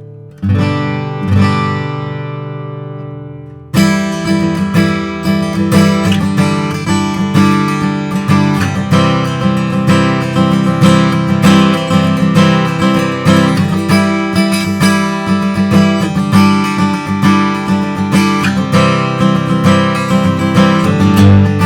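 Gibson Custom Advanced Jumbo acoustic guitar with solid mahogany back and sides being strummed. Two chords are struck about half a second and a second and a half in and left to ring out. From about four seconds in comes steady rhythmic strumming.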